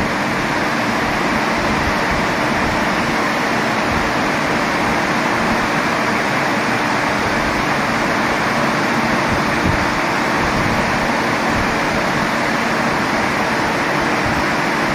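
Twin-fan evaporator unit (LU-VE Vantage unit cooler) in a freezer cold room, its two fans running with a steady, even rush of air while the room pulls down toward its −25 °C setpoint.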